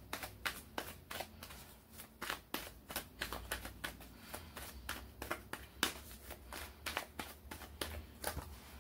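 Tarot deck being shuffled by hand: a run of quick, irregular card snaps and flicks, a few a second.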